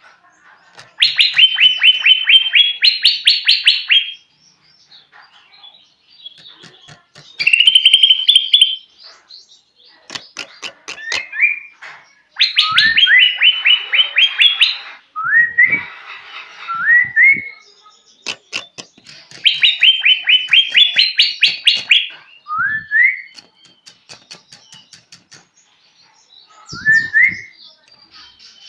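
Male green leafbird (cucak ijo) singing: bursts of rapid repeated chattering notes lasting a few seconds each, alternating with short rising whistles.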